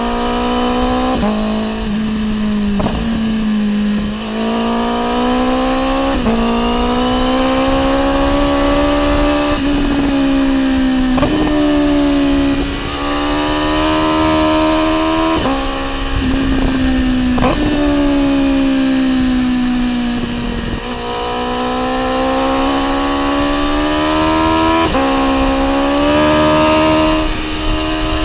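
BMW S1000R M's inline-four engine through a full Akrapovic exhaust, ridden hard. The revs climb and drop again and again as it shifts through the gears, with a short crack at each shift, over wind noise.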